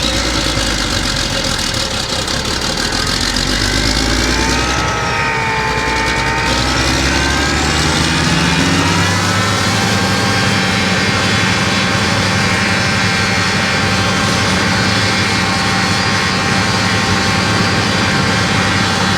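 Combine harvester running, its threshing drum and belt drives spinning up: a whine rises in pitch over several seconds, then the machine runs on steadily at speed. This is a test run after the belts were readjusted.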